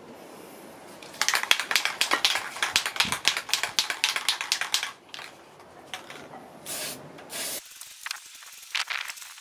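Aerosol can of hammered spray paint spraying in rapid sputtering spurts for about four seconds, the sign of a clogging spray nozzle. Two short bursts of spray follow near the end.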